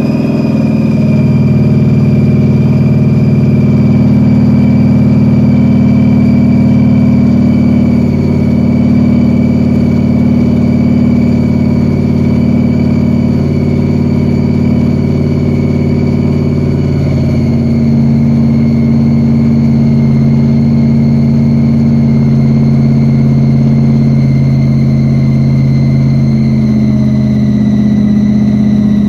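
Supercharged 427 big-block V8 of a 1969 Corvette Stingray with a Weiand roots blower, idling steadily while warming up after a cold start. A thin high whine runs over the engine note and slowly falls in pitch.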